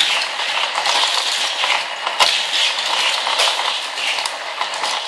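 Hot Wheels plastic track pieces rattling and clicking irregularly as they are handled and fitted together.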